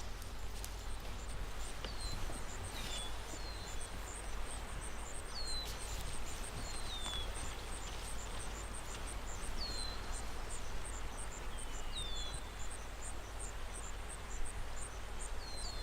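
Outdoor ambience: an insect chirping in a steady high pulse, several times a second, with short downward-sliding bird calls every second or two, over a low steady rumble.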